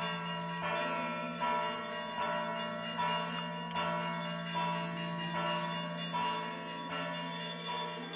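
Bells struck in an even rhythm, about one stroke every three-quarters of a second, each stroke ringing on, over a steady low drone.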